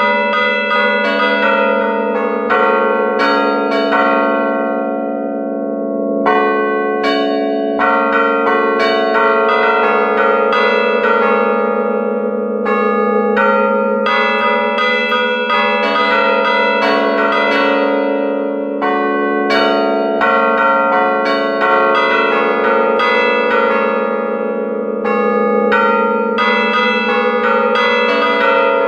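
A peal of five church bells played from a hand keyboard in the belfry, heard close up: the bells hang still and are struck by their clappers in quick rhythmic patterns, a few strikes a second, the bronze tones overlapping and ringing on.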